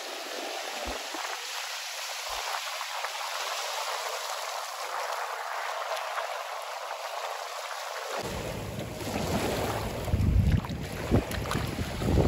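Small sea waves washing and breaking in the shallows, a steady rush of water. From about eight seconds in, wind buffets the microphone in gusts that grow louder.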